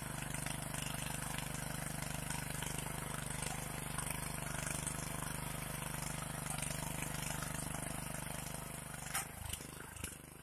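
Honda FJ500 power weeder's single-cylinder four-stroke petrol engine running steadily under load while its tines and ridger cut a furrow through soil. About nine seconds in the engine note dies away, followed by a few knocks.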